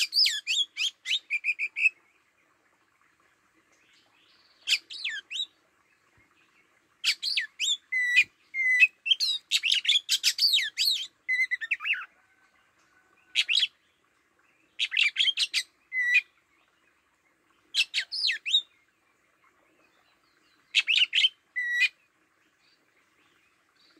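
Caged Oriental magpie-robin decoy singing its territorial song: rich bursts of varied, quickly sweeping whistles and chirps, each phrase lasting a second or a few, separated by pauses.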